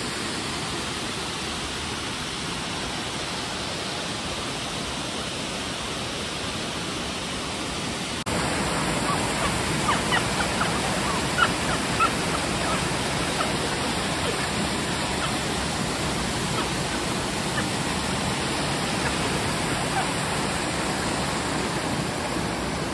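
Brandywine Falls and the white-water rapids below it rushing steadily. About eight seconds in the rush gets a little louder, and a few short, sharp sounds stand out over it around ten to twelve seconds in.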